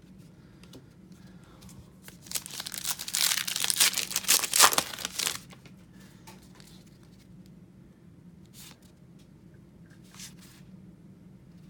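A baseball card pack wrapper being torn open and crinkled for about three seconds, followed later by two soft brushing sounds.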